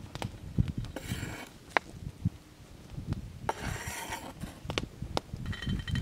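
About half a dozen sharp knocks of a knife on a wooden cutting board, with two spells of rustling as the cut çiriş greens and the metal bowl are handled.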